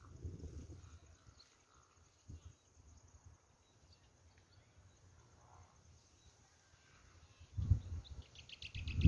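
Wind buffeting the phone's microphone in gusts, about a second at the start and again near the end. In the quiet stretch between, faint bird chirps, then a quick rapid trill just before the end.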